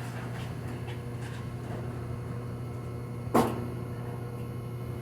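A single sharp knock, like something hard being set down or bumped, about three and a half seconds in, over a steady low hum and a few faint clicks.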